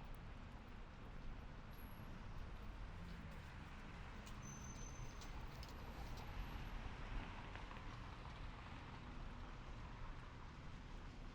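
Faint city street ambience: a steady low rumble of traffic with a few light clicks, and a short high tone a little before the middle.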